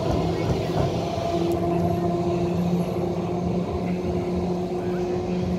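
Double-deck electric tram, London tram No. 1 'Bluebird', running away along its street track: a steady low hum, joined about a second in by a higher steady tone.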